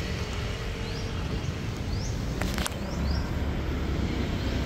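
Outdoor street ambience: a steady low rumble of distant road traffic, with a string of short, high, rising chirps and a couple of sharp clicks about halfway through.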